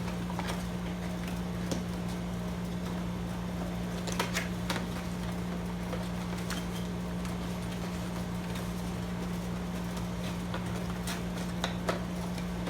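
A few light clicks and knocks of small deadbolt latches and parts being handled and put into their boxes, over a steady low hum.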